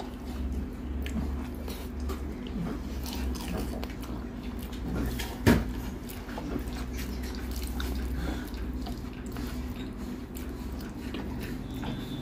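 Hand-eating sounds: fingers mixing and squishing rice and curry on a metal plate, with chewing, over a steady low hum. One sharp knock stands out about five and a half seconds in.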